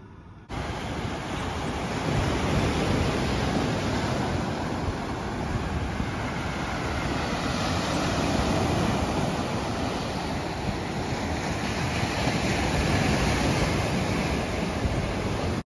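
Waves breaking on a sandy beach, a steady surf wash mixed with wind rumbling on the microphone. It starts abruptly about half a second in and cuts off suddenly near the end.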